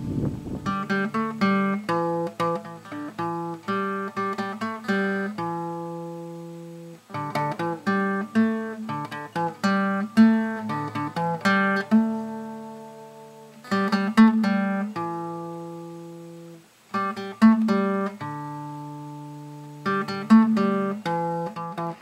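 Acoustic guitar instrumental music: quick runs of plucked notes, each phrase ending on a long note left to ring out.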